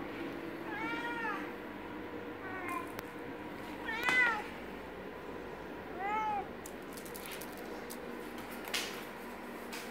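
Tabby cat screaming while fetching a toy mouse: four separate meowing calls, each rising and falling in pitch, a second or two apart, the loudest about four seconds in. A few faint clicks follow near the end.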